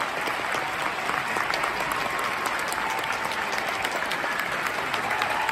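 Theatre audience applauding, a steady dense clapping of many hands.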